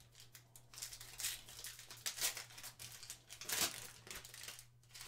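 Trading-card pack wrapper being torn open and crinkled, in irregular crackles with two louder rips about two seconds in and about three and a half seconds in.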